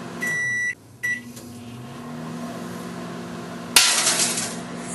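Microwave oven beeps twice as it is started, then hums while running. About a second before the end comes a sudden loud crackling hiss: the incandescent taillight bulb inside arcing and flaring in the microwave field.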